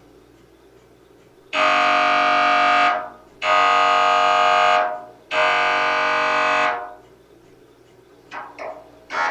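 MRI scanner's gradient coils sounding three long, loud buzzing tones, each about a second and a half with short gaps between. Near the end come two short blips and the start of a fast pulsing.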